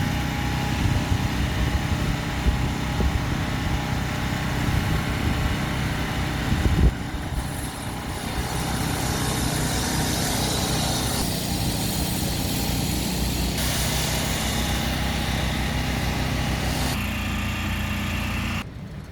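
Heavy machinery engine running steadily, with a sharp knock about seven seconds in. The sound changes abruptly near the end and drops sharply in level just before it finishes.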